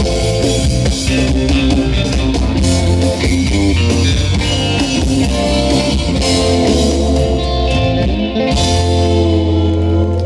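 Instrumental surf rock band playing live: electric lead guitar, electric bass and drum kit. A little past eight seconds in the drums stop and the band holds a final chord that rings on.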